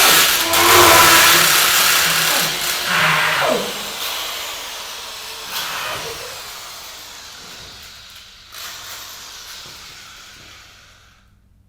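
Power tool sound effect running loud, then winding down with a steeply falling whine about three and a half seconds in. A hiss is left that fades away gradually.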